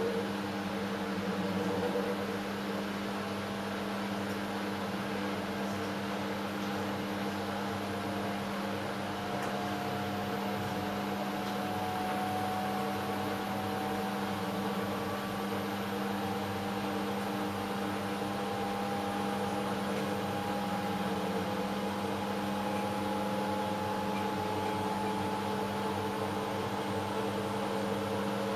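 Hoover H-Wash 500 washing machine running mid-cycle: a steady motor hum with a faint whine that climbs slowly in pitch.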